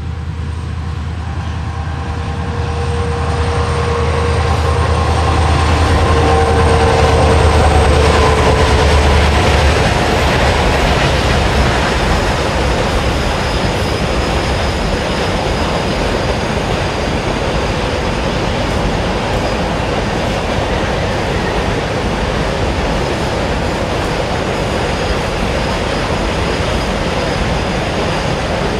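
WDG4 diesel locomotives of a freight train passing: their turbocharged two-stroke V16 engines give a loud low drone with a faint whine over it, loudest a few seconds in. After about ten seconds the drone fades and the container wagons roll past with a steady rumble of wheels on rail.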